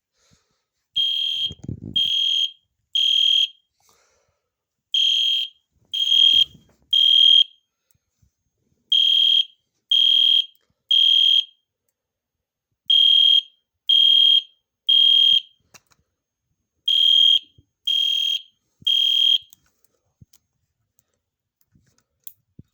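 EST Genesis xenon horn strobe sounding its electronic horn in the temporal-three evacuation pattern: three loud, high beeps of about half a second each, then a longer pause, repeated five times. It stops about twenty seconds in, followed by a few faint clicks.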